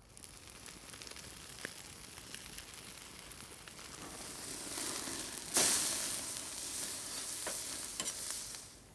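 Pork steak sizzling on a grill grate over a wood fire. The sizzle grows louder, surges suddenly about five and a half seconds in, and is broken by a few sharp crackles.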